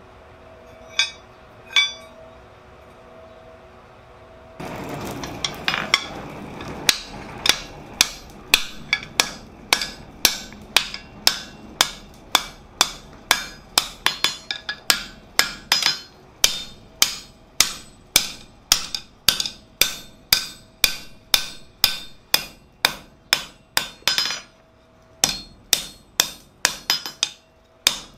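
Blacksmith's hand hammer forging the red-hot end of a steel crowbar on an anvil: ringing blows at about two a second, with a short pause near the end before the blows resume. Two lighter metal clanks in the first two seconds as the bent crowbar knocks against the anvil.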